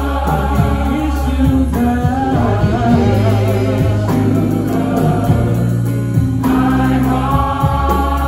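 Church choir singing a gospel song over instrumental backing, with sustained notes and a steady low bass underneath.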